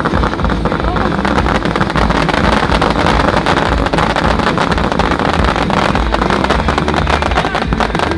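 Dense fireworks barrage: many rapid bangs and crackles packed closely together over a continuous low rumble.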